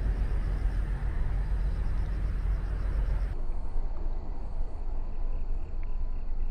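Steady low outdoor rumble, with a fainter hiss above it that drops away about three seconds in.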